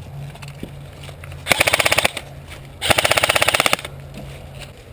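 Airsoft electric gun firing two full-auto bursts, a short one and then a longer one about a second later, rapid evenly spaced shots at about fifteen a second.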